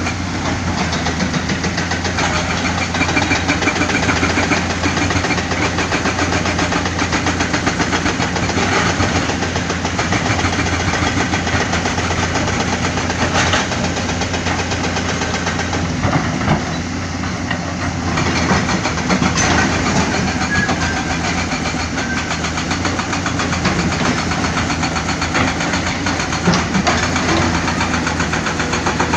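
Heavy diesel engine of earthmoving machinery running steadily, with a constant low hum and a few short knocks and clanks.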